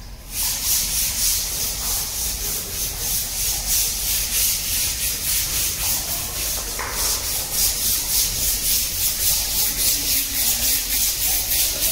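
Hand scrubber rubbed quickly back and forth against the wall of a water storage tank during cleaning: an even, hissy scrubbing at about three to four strokes a second.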